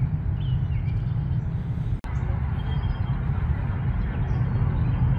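Steady low outdoor rumble with a few faint bird chirps. The sound drops out for an instant about two seconds in.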